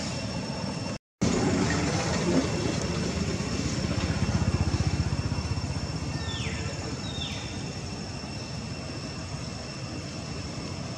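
A motor vehicle's engine rumbles past, loudest about four to five seconds in, over steady outdoor background noise with thin high-pitched tones. Two short falling chirps come around six and seven seconds in. The sound drops out completely for a moment about a second in.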